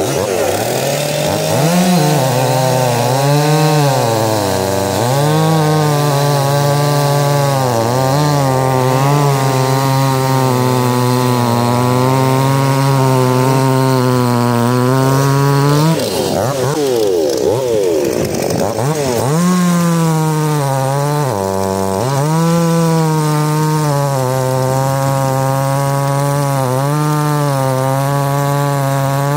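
Two-stroke chainsaw running at high revs while cutting wood. Its pitch sags repeatedly as the chain bites in and picks back up, with a stretch near the middle where the revs shift up and down.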